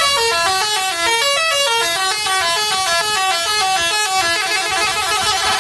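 Indonesian bus telolet musical horn playing a quick stepping melody of short notes. Near the end several tones overlap in a wavering chord.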